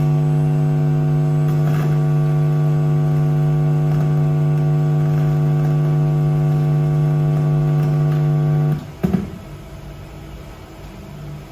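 A loud, steady, low-pitched electronic buzz from a speaker, held unchanged for about nine seconds and then cut off suddenly, with a click just after.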